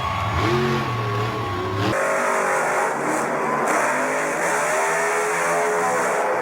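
Monster truck engine revving, its pitch repeatedly rising and falling; the sound changes abruptly about two seconds in.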